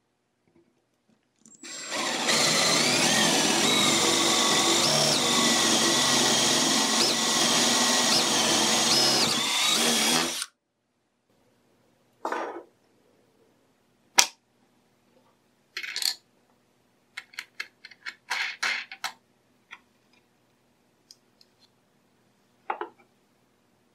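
A handheld power tool runs in one continuous stretch of about nine seconds, its pitch rising as it starts and then holding. It is followed by a series of light knocks and clicks as wooden jig parts are handled and set down on the bench.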